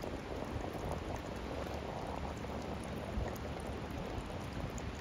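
Steady noisy wash of ocean surf breaking over a rocky reef, with a faint fizzing crackle of water draining among the rocks.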